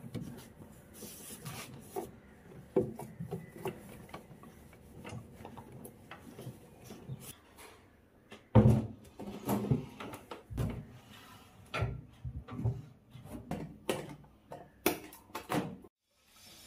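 A cloth rubbing and wiping over the plastic casing of a microwave oven, with a few light taps. About eight seconds in come louder knocks and scraping as things are handled and wiped on a cabinet top.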